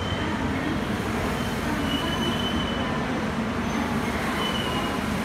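Indian Railways Rajdhani Express passenger coaches rolling slowly past as the train pulls into the platform, with a steady rumble of wheels on rail. Short high-pitched brake squeals come a few times as it slows.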